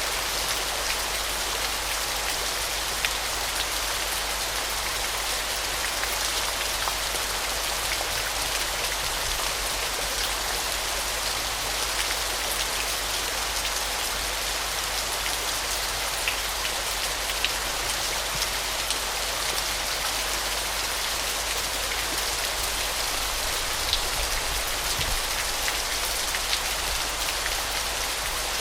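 Waterfall: a steady hiss of falling, splashing water, with small drips and splashes standing out now and then.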